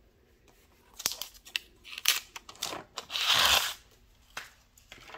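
Clear plastic film being cut and pulled off a planner notebook page: scattered clicks and crinkling, with one louder tearing rip a little over three seconds in.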